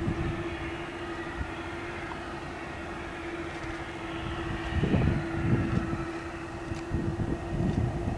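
Airbus A310-308 jet airliner heard from a distance giving a steady, even whine during pushback. Gusts of wind buffet the microphone about five seconds in and again near the end.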